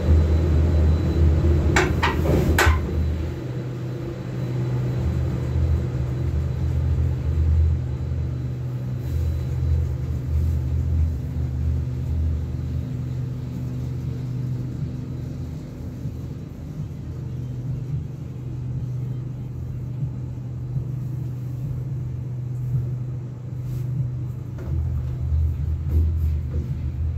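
Gondola cabin of a detachable cable car running along its haul rope, heard from inside as a steady low rumble with uneven low surges. Two sharp clicks come about two seconds in as the cabin clears the station structure, and faint clicks come near the end as it passes a support tower.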